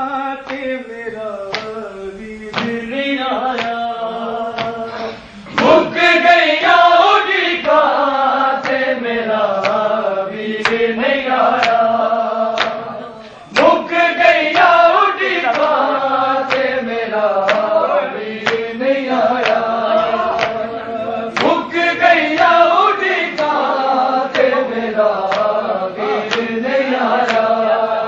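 Men chanting a slow, melodic devotional refrain that opens with the Arabic salutation on the Prophet, with sharp slaps keeping a steady beat under the voices.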